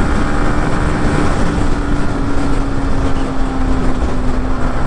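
Motorcycle running fast, a steady engine note sinking slightly in pitch under heavy wind rush on the rider's microphone.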